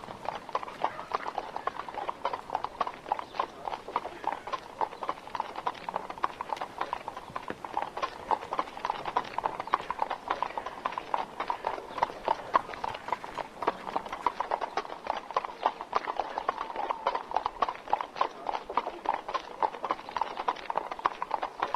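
A fast, uneven run of sharp clicks or knocks, several a second, going on throughout.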